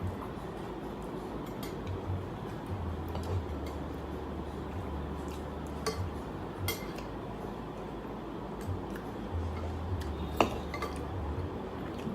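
Cutlery clinking against dishes and bowls during a meal: a few scattered sharp clicks, the sharpest about ten seconds in, over a steady low hum.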